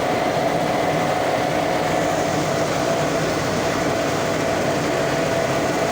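Rice-milling machine (posho mill) running: a loud, steady mechanical noise with a constant hum.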